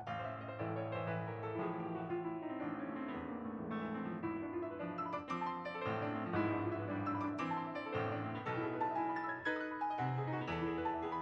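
Steinway S-155 baby grand piano being played: a flowing piece of many quick notes over held bass notes, opening with a falling run.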